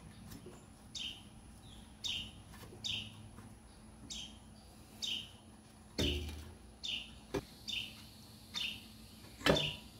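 A bird chirping over and over, short downward-sliding chirps about once a second. Two sharp knocks break in, one about six seconds in and a louder one near the end.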